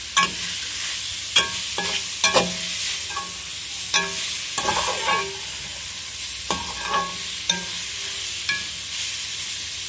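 Shredded cabbage, carrot and capsicum stir-frying in oil in a metal kadhai: a steady sizzle, with a slotted metal spatula clinking and scraping against the pan about once or twice a second as it stirs.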